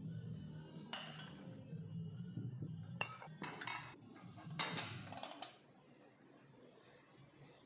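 Dishes and kitchenware clinking and clattering in several short bursts as they are handled, over a low steady hum that stops about five and a half seconds in.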